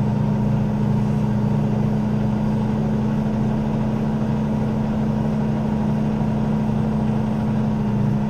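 Semi-truck diesel engine running at a steady pitch, a constant low drone with no change in speed.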